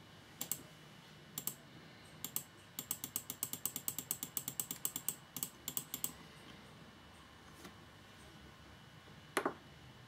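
Computer mouse button clicking on the remote-control app's volume-up button: a few single clicks, then a fast run of about five clicks a second for some three seconds, each click raising the menu volume one step. A single louder, duller knock comes near the end.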